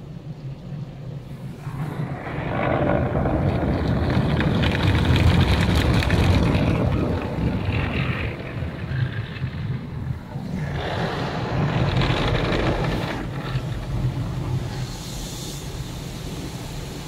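Automatic car wash heard from inside the car's cabin: water spray and wash equipment rushing and drumming over the windshield and body. It swells loud about two seconds in, eases off around ten seconds, and surges again briefly before settling.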